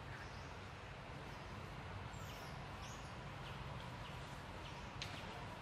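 Faint outdoor tree-canopy ambience: a steady low hum with scattered short, high chirps and a single click about five seconds in.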